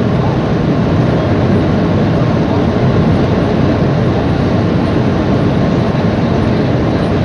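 Jet airliner's engines and rushing air heard from inside the cabin during the landing: a loud, steady noise with no distinct events.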